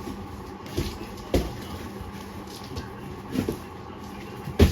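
Scattered knocks and clunks at irregular intervals over a steady background hum, the loudest one just before the end.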